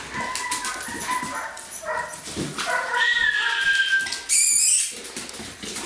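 Shepherd-type dog whining and yipping in a string of high-pitched calls, with a long drawn-out whine about three seconds in and a shrill squeal soon after.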